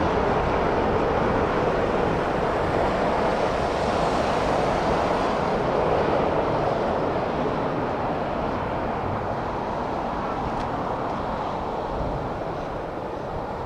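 Jet engine noise from a climbing Boeing 787 airliner, its Rolls-Royce Trent 1000 turbofans at takeoff power: a steady, even roar that slowly fades as the aircraft pulls away.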